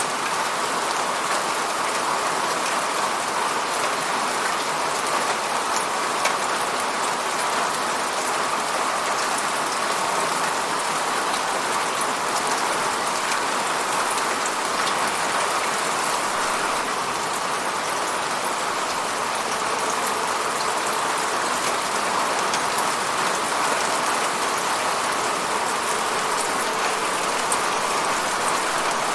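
Steady falling rain: an even hiss with fine drop patter, unchanging throughout.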